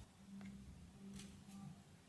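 Near silence, with a faint low hum.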